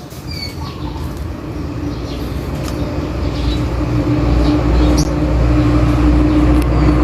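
A motor engine's low rumble with a steady hum, growing steadily louder and then cutting off abruptly at the end, with a few short bird chirps.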